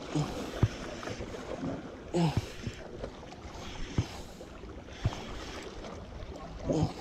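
Shimano TwinPower 4000XG SW spinning reel being cranked under the load of a large hooked queenfish, over steady wind and sea noise, with a few sharp knocks.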